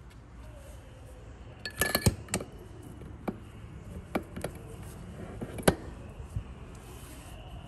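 Scattered metallic clinks and knocks of the steel shaft and parts of a Hobart mixer planetary being handled and fitted into the housing: a quick cluster about two seconds in and a sharper single knock near six seconds.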